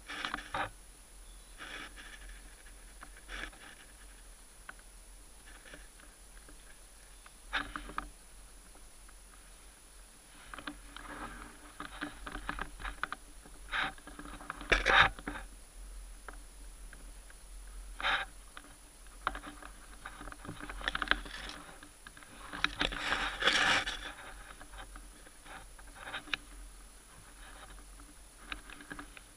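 Intermittent rustling and scraping close to the microphone: dry leaf litter and the ghillie-wrapped rifle shifting as the prone player moves, in short scattered bursts with a busier cluster past the middle.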